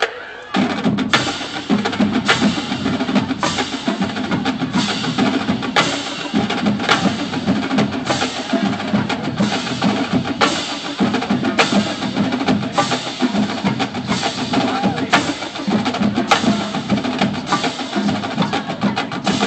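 High school marching band playing a show tune at rehearsal, horns and drums together, with a strong percussion hit on the beat about once a second. The music starts abruptly about half a second in.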